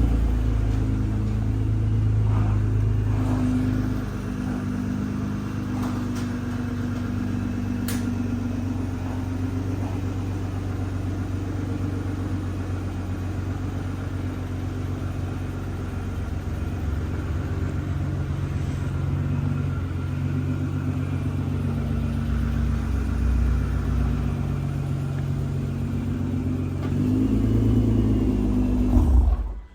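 Car engine running steadily with a low, even rumble, stopping abruptly at the very end.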